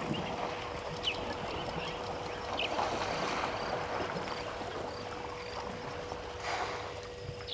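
Outdoor waterhole ambience: a steady rushing noise with a few short bird chirps and a faint steady hum. There is a brief swell of noise near the end.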